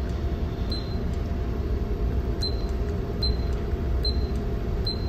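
Steady low rumble of a ship's bridge with the vessel underway, with a faint short high tick about once a second.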